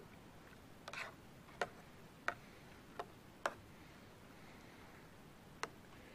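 Metal spoon clinking against the side of a steel canteen cup while stirring pasta: about six sharp, separate ticks at uneven intervals.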